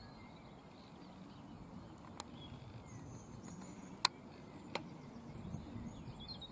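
Faint outdoor ambience: a low steady rumble with a few faint bird chirps, broken by three sharp clicks about two, four and nearly five seconds in, the second the loudest.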